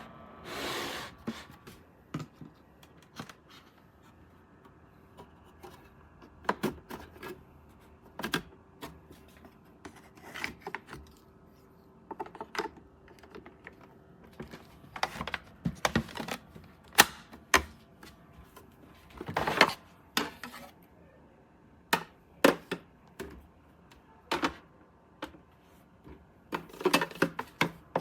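Irregular clicks, taps and knocks of small hard objects being handled, coming in scattered clusters with pauses between them.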